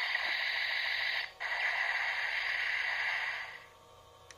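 Electronic sound effect from a DX Kamen Rider Zi-O toy driver and Decade Ridewatch, played through the toy's small speaker: a loud static-like rushing hiss in two stretches with a short break about a second in, fading out after three and a half seconds. Then a couple of sharp plastic clicks near the end as the Ridewatch is handled.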